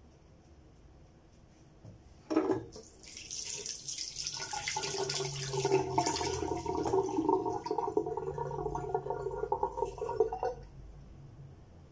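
Water from a tap running into a sink. A knock comes about two seconds in, then the water runs steadily with a held ringing tone in it and stops near the end.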